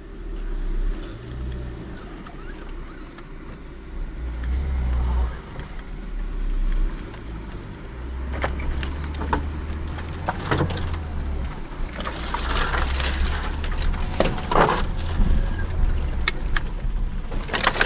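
Lada Niva driving slowly over a rough forest track, its engine running with a low rumble that swells and fades. Scattered knocks and rattles from the body and suspension come more often and louder in the second half.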